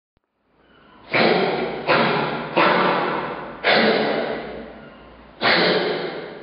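Juvenile grey seal forcing out sharp breathy coughs against its hiccups, five in a row with uneven gaps, each starting suddenly and fading away over about a second.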